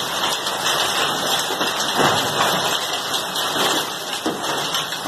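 Heavy rain from a strong storm pouring steadily, an even dense hiss.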